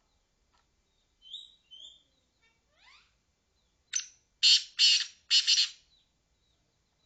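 Francolin (titer) calling: a couple of short high notes and some rising slurs, then a sharp click and three loud, harsh notes in quick succession.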